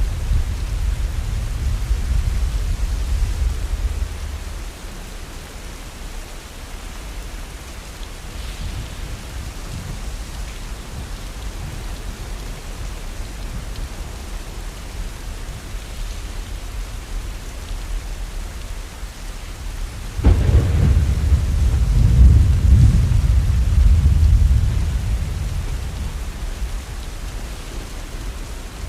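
Steady rain falling, with thunder: a low rumble dies away over the first few seconds, then about twenty seconds in a sudden clap of thunder rolls on for several seconds before fading.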